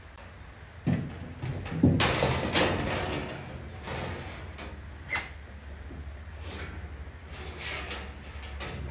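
Sheet-metal car body panels being handled and fitted: a couple of knocks about a second in, then a scraping slide of metal on metal lasting a second or so, followed by lighter clicks and taps.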